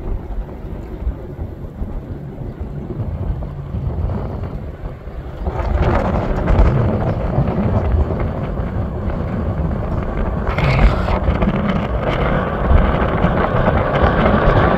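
Wind buffeting the microphone over a low rumble, then from about five seconds in the roar of an F-22 Raptor fighter jet's engines rises and keeps growing louder as the jet takes off.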